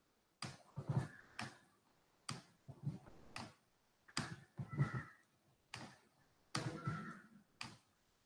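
Soft clicks and taps on a computer, about a dozen at irregular intervals, as the on-screen whiteboard is scrolled.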